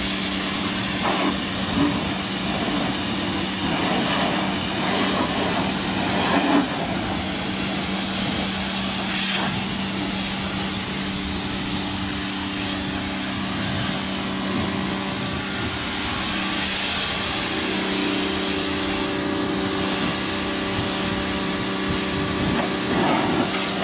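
Pressure washer running steadily: a constant motor hum under the hiss of the high-pressure water jet spraying onto a side-by-side's body and tyres.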